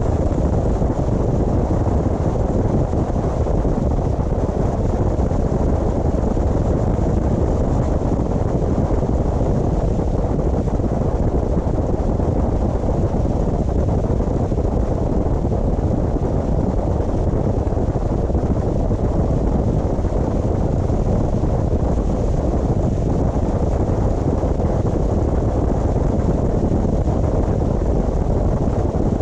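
Steady road and wind noise from a car driving along, an even low rumble that holds at the same level throughout.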